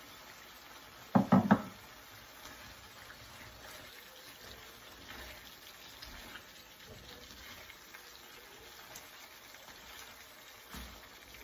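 A spatula knocked three times in quick succession against a pan about a second in, then quiet stirring of a simmering curry sauce, with one more light knock near the end.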